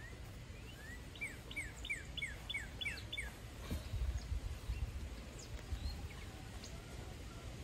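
A songbird sings a quick run of about eight repeated chirps in the first few seconds, over a low rumbling noise that swells about halfway through.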